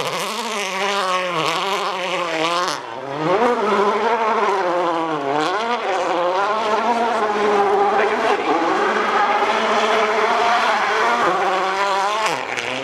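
Rally car engine working hard, its pitch climbing and dropping again and again through rapid gear changes and lifts off the throttle, with a short dip about three seconds in.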